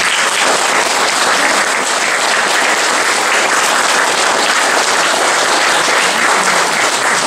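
An audience applauding steadily, in a dense patter of many hands clapping, dying away just after the end.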